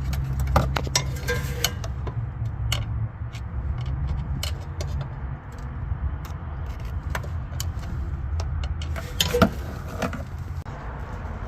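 Ford Escape rear suspension squeaking and clattering in irregular clicks and knocks over a steady low vehicle rumble, with one sharper knock about nine seconds in: the rear noise that the video traces to worn rear trailing arm bushings.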